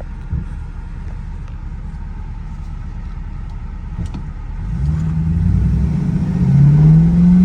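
LS1 V8 of a restomod Firebird heard from the car as it cruises with a steady low rumble, then accelerates from about four and a half seconds in. The revs climb, drop once as the 4L60 automatic shifts up, and climb again.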